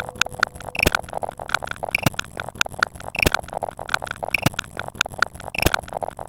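A rapid, uneven string of short sound effects: sharp clicks mixed with brief high blips, several a second.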